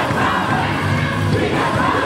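Concert audience cheering and shouting over a live gospel band, with repeated bass notes underneath.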